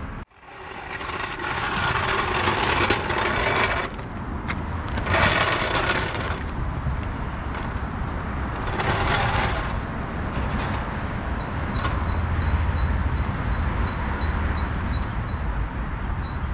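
Hand-tool work on a car's rear end: three bursts of ratcheting and scraping, the longest about three seconds, over a steady low rumble, with faint regular ticking in the second half.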